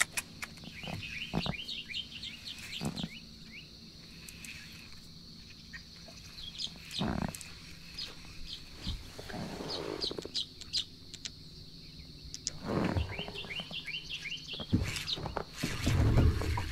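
Wild birds chirping in the marsh, in repeated quick runs of short high chirps several times over. A few brief knocks from handling come in between, and there is a louder low thump near the end.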